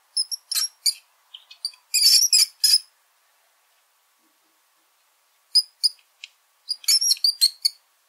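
Rat squeaking: short, high-pitched squeaks in quick clusters, a run in the first three seconds, a pause, then another run from about five and a half seconds in.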